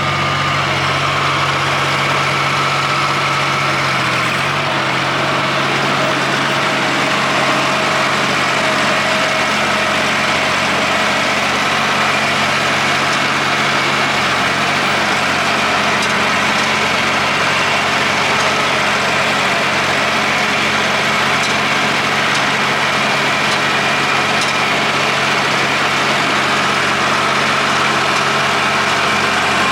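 Tractor engine running steadily, driving a Siromer P10 round baler, with the baler's mechanism adding a steady mechanical noise over the engine note. The engine note shifts slightly about four seconds in.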